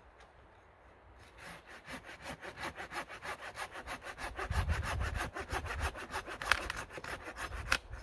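Hand saw cutting through a downed birch pole in quick, even strokes. The sawing starts about a second in and grows louder.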